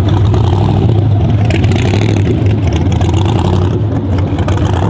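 Loud car engine revving, with a steady low drone underneath and a harsher stretch about two seconds in.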